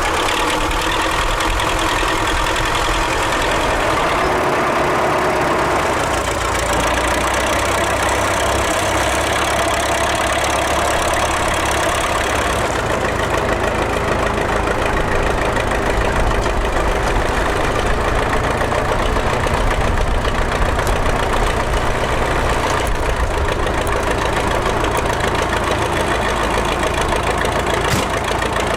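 Heavy diesel engine of a forestry machine running steadily, its sound changing in character about four seconds and again about thirteen seconds in.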